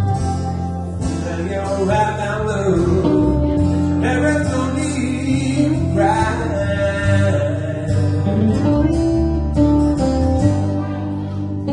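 Band music led by a strummed acoustic guitar over a steady bass line, with a melodic line moving above and no clear words.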